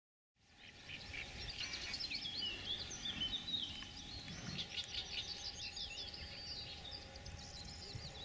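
Several songbirds singing and chirping, many overlapping quick trills and calls, over faint outdoor background noise; it fades in from silence about half a second in.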